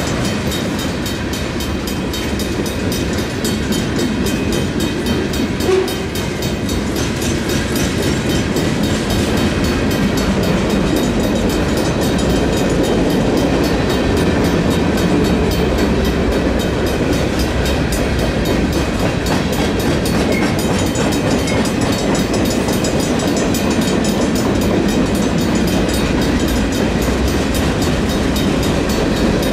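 Freight train cars rolling steadily past a grade crossing: a continuous rumble of steel wheels on the rails, with a brief louder knock about six seconds in. The crossing's Griswold mechanical bells ring steadily throughout.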